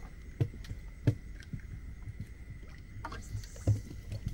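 Scattered handling knocks on a wooden boat as a plastic bucket and tackle are moved: about four soft low thumps, over a faint steady high tone.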